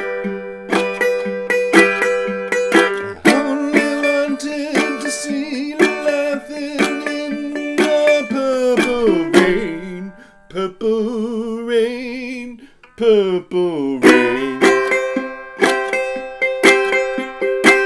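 JN Guitars Cask Puncheon resonator tenor guitar, capoed at the fifth fret, strummed and picked with ringing chords. About ten seconds in the chording thins to a few wavering, sliding notes, and full strummed chords return about three seconds later.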